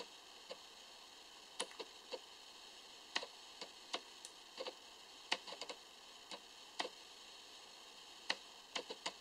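Light, irregular clicks and taps of a nano SIM card and the iPhone 5's SIM tray being handled and fitted, about a dozen small sharp ticks spread unevenly.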